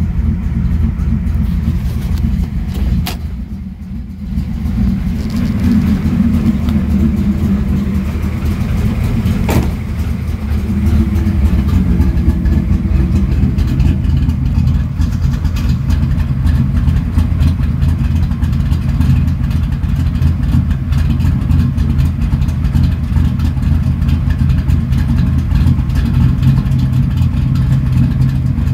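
1995 Pontiac Trans Am's LT1 V8 with an aftermarket TPIS camshaft, idling steadily near the end of its warm-up from a cold start. It is heard first from inside the cabin, then louder at the tailpipes from about ten seconds in. Two sharp clicks come about three and ten seconds in.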